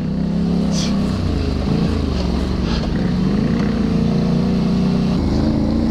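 ATV engine, the V-twin of a Can-Am Renegade 1000 XXC, running steadily at trail speed, its pitch shifting a little with the throttle.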